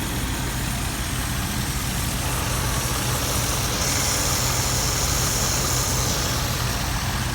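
Steady low motor hum, with a hiss lasting about two and a half seconds just past the middle.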